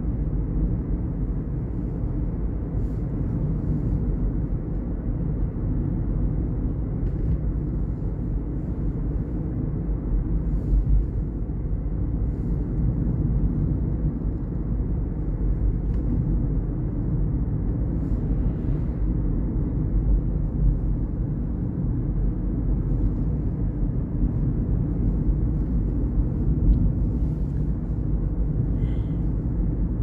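Steady low rumble of a car driving, heard from inside the cabin: tyre and engine noise on an asphalt road.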